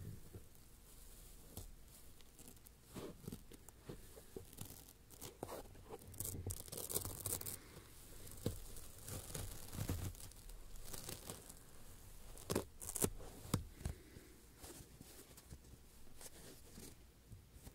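Foam being scratched and squished by hand close to the microphones: irregular scratchy, crackling rubs and small clicks, with the loudest scratching about six to seven seconds in and again around thirteen seconds.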